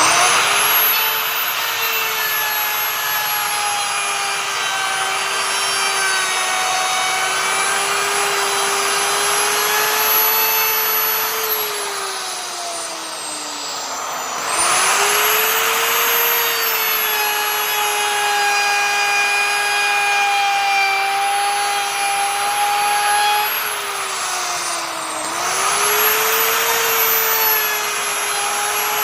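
Electric wood router's motor starting up with a high whine and running steadily. Twice, about twelve seconds in and again near the end, its pitch slides down for a couple of seconds as it slows, then it quickly speeds back up.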